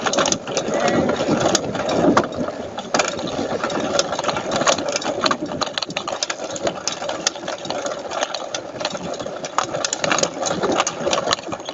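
A small engine running steadily under a constant clatter of rattles and knocks, typical of a trail motorcycle on rough ground.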